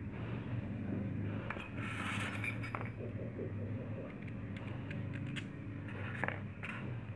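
Small metal clicks and a brief scrape as the metal parts of a PCP air-rifle box chamber and its trigger unit are handled during assembly, over a steady low hum.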